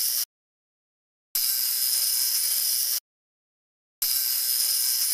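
Wind-up clockwork mechanism whirring in short bursts of about a second and a half each, a steady high hiss that starts and cuts off sharply, with dead silence between bursts.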